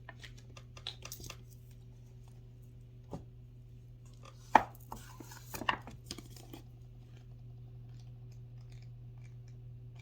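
Light taps, clicks and rustles of things being handled, in two clusters with a sharper knock about four and a half seconds in, over a steady low hum.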